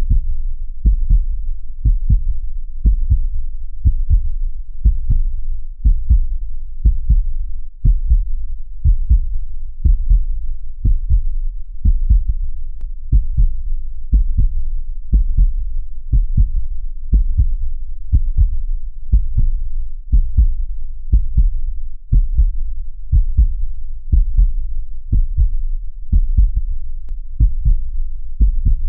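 Heartbeat, low and steady: a double lub-dub thump repeating about once a second.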